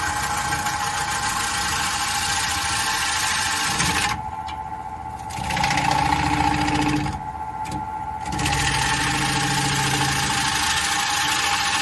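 Wood lathe running with a steady whine while a gouge cuts the spinning black walnut bowl, the wood partly punky and brittle. The cutting noise stops twice, a little after four seconds in and again near eight seconds, as the tool comes off the wood, leaving the lathe's hum.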